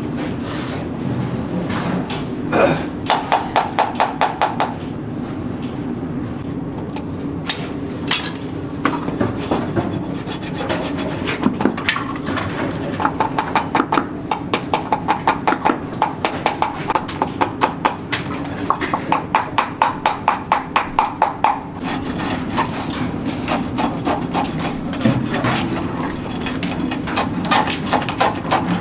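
Farrier's hammer tapping in quick runs of about five light, ringing strokes a second, with pauses between the runs, over a steady low hum.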